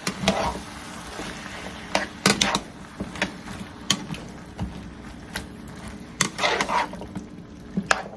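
A plastic spatula stirring and turning chopped vegetables and canned diced tomatoes with their juice in a skillet: wet, squelching stirs with irregular scrapes and knocks against the pan, one longer scrape about six and a half seconds in.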